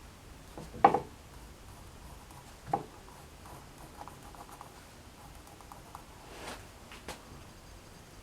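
A pencil scratching faintly on leather as a paper template's outline is traced, with a couple of light knocks about one and three seconds in and soft handling rustles.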